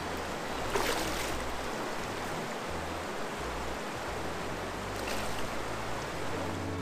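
Steady rush of flowing river water, with a brief tap about a second in.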